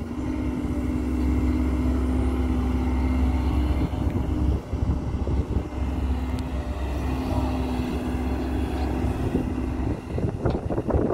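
Hidromek 140LC crawler excavator working: its diesel engine runs under load with a steady hum over a low rumble as the bucket digs and lifts soil, with a second excavator running behind it. Near the end come a few knocks as the bucket bites into the dirt.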